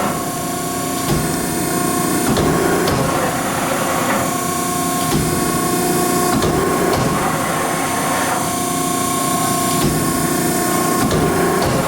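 Hydraulic press brake running: a steady pump hum with a constant whine, and sharp clicks and clunks every few seconds as the machine cycles.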